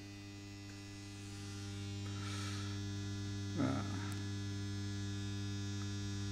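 Peerless Magnarc carbon-arc lamphouse humming steadily with the arc burning, the hum growing louder over the first two seconds. A brief rustle midway and a soft bump just after are heard.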